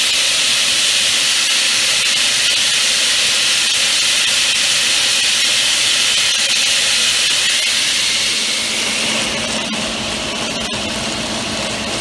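Shelled corn pouring from a grain downspout into a bin through a spreader, a steady loud hiss of falling kernels. About nine seconds in it eases off and gives way to a quieter steady hum of running farm machinery.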